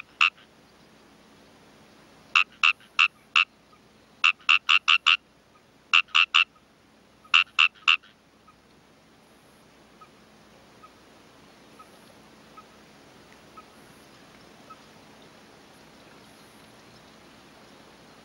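A frog calling in short, sharp croaks delivered in quick runs of two to six, five runs over the first eight seconds. After that the croaking stops and only a faint steady hiss remains.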